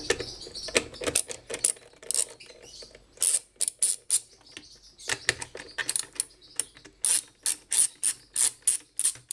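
Ratchet wrench clicking as bolts are loosened: scattered clicks and clinks at first, then from about three seconds in an even run of sharp clicks, about three a second.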